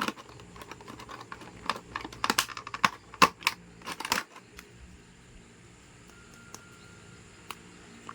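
Sharp plastic clicks and rattles from an action figure and its packaging being handled, many in the first four seconds, then quieter with one more click near the end.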